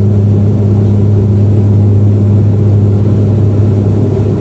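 Bombardier Dash 8 Q400 turboprop heard from inside the passenger cabin, its engines and propellers running steadily during the takeoff flight. It is a loud, constant deep drone with a second tone above it.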